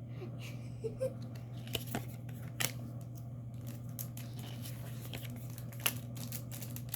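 Trading-card booster-pack wrapper crinkling and cards being handled: a scatter of short crackles and ticks over a steady low hum.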